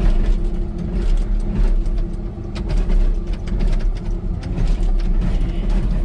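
Hitachi ZW50 compact wheel loader's diesel engine running steadily while it works the pallet forks, with a few short knocks over it.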